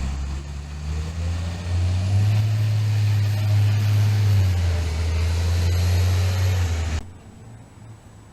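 Heavy road vehicle's engine running, a loud low rumble that begins abruptly and cuts off suddenly about seven seconds in.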